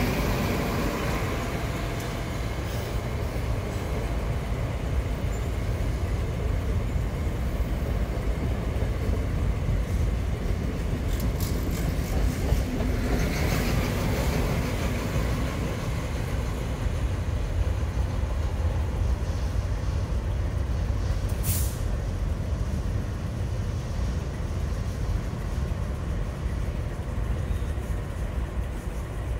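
XPT diesel passenger train passing: a steady low rumble from the power car and carriages running on the rails, with a short high-pitched sound about two-thirds of the way through.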